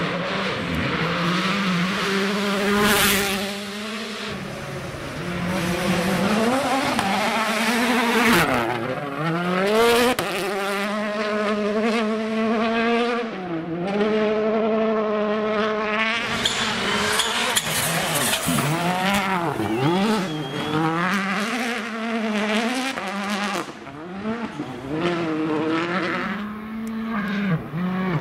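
2017 World Rally Car engines, 1.6-litre turbocharged four-cylinders, revving hard as several cars pass in turn on gravel stages. Their pitch rises and drops sharply again and again with each gear change and lift.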